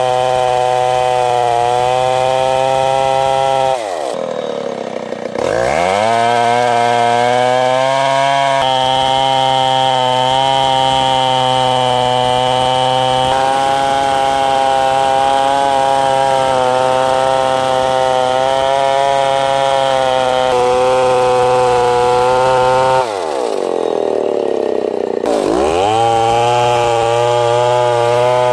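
Stihl 070 two-stroke chainsaw running at full throttle under load, ripping lengthwise through an ulin (ironwood) log to make planks. Twice, about four seconds in and again about twenty-three seconds in, the engine note drops sharply and then climbs back to full speed.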